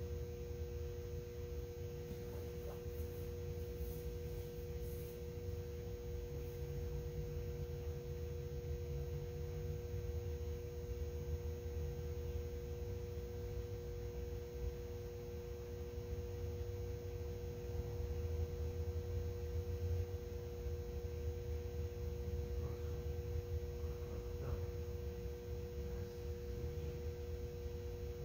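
Steady background hum: two constant tones held over a low rumble, with a few faint knocks.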